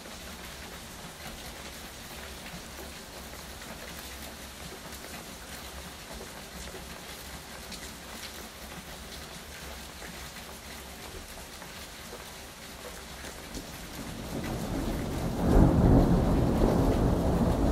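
Steady rain falling, with a rumble of thunder that builds about thirteen seconds in and peaks loud near the end.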